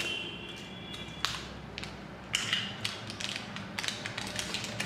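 Sharp clicks and crackles of small plastic butter portion cups being peeled open and squeezed, a few scattered snaps with a faint steady hum underneath.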